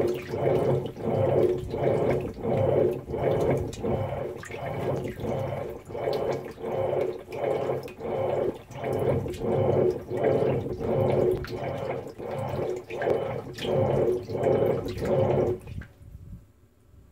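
Whirlpool Cabrio top-load washer agitating a deep-water wash with its lid open: water sloshing in even strokes about one and a half times a second. The agitation stops suddenly about a second and a half before the end.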